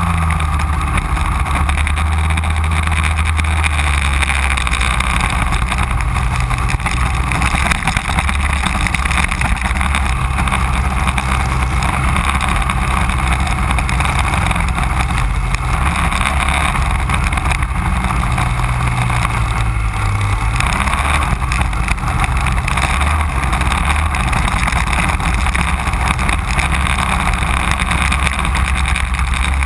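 Racing go-kart engine running hard, recorded from a camera mounted on the kart, its pitch rising and falling with the throttle through the corners.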